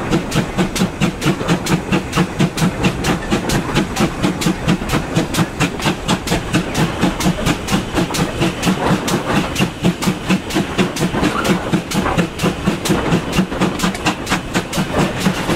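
GWR 4200 Class 2-8-0 tank engine's two-cylinder exhaust working hard up a gradient: an even, fast beat of chimney blasts, about four a second, over the running noise of the train, heard from the window of the coach behind the engine.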